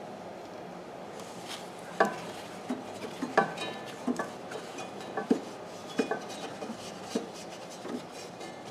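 About a dozen irregular clinks and knocks of hard objects being handled while cleaning under a refrigerator, some with a brief ring, over a steady background hum.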